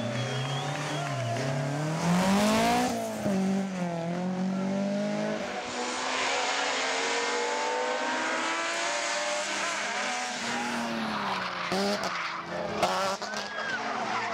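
Rally car engines revving hard, rising and falling in pitch through gear changes, with one long climb in pitch under acceleration. Near the end, tyres squeal as a BMW 3 Series slides sideways through a hairpin.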